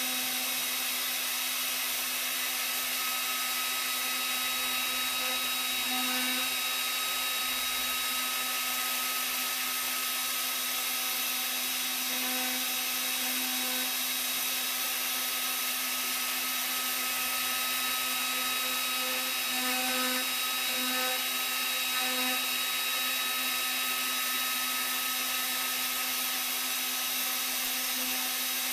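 Spindle motor of a T8 Mini desktop CNC running steadily while its V-shaped engraving bit mills traces into a copper-clad PCB blank: a constant hum with a whine and hiss above it, swelling slightly now and then.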